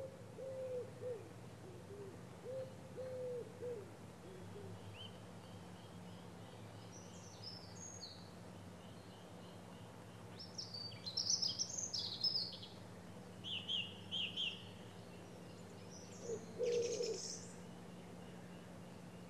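Birdsong: low hooting calls several times in the first few seconds and again near the end, with higher chirps and short trills from small birds in between, over a faint steady low hum.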